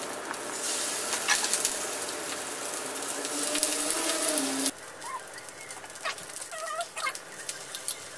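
Pancake batter sizzling in a hot oiled frying pan as it is ladled in; about five seconds in the sizzle drops suddenly to a quieter, steady frying sound, with a few short chirps near the end.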